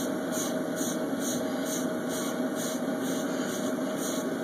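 Wave brush bristles swishing over short hair in quick repeated strokes, about two a second, over a steady background hum.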